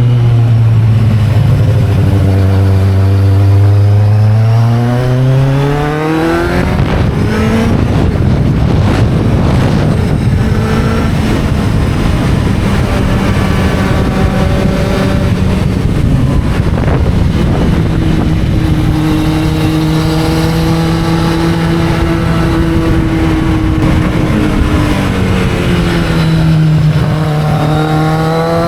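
Kawasaki Z750's inline-four engine on the move. Its note drops as the bike slows over the first few seconds, then climbs under acceleration, settles to a fairly steady cruise, and dips and rises again near the end.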